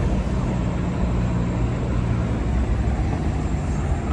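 Steady low rumble of city traffic, with a droning hum that fades near the end.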